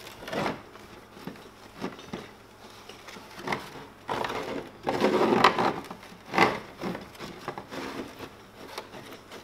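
Cloth wiping over a hard plastic RC truck body (Pro-Line Monster Fusion Bash Armor) in a series of irregular rubbing strokes, a longer one near the middle, as the body is cleaned with rubbing alcohol.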